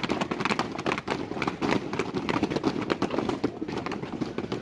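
Many sailors' boots scuffing and stamping in quick, irregular short steps on hard ground as a squad dresses its ranks to the right; the steps thin out near the end.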